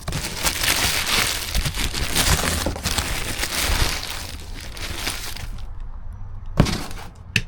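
Plastic packaging crinkling as the new replacement alternator is handled, for about five seconds, followed by two sharp knocks near the end.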